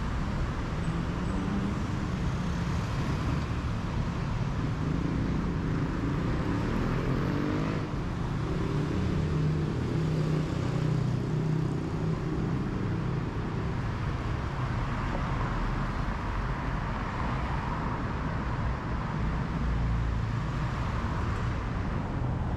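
Road traffic on a city street: cars passing, a steady hum of engines and tyres, with engine notes rising and falling in pitch as vehicles go by in the first half.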